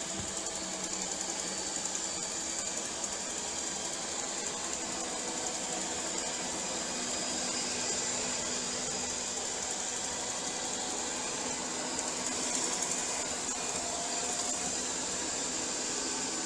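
ILIFE V10 robot vacuum cleaner running: a steady whir from its suction motor and brushes, with a strong high hiss.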